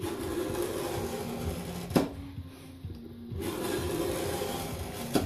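A blade drawn through leather along a straight edge, cutting a strip in half: two long strokes of about two seconds each, each ending in a sharp click.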